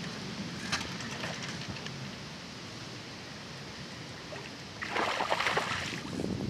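Water splashing as a hooked zander is brought to the bank, with a louder burst of splashing lasting about a second and a half near the end.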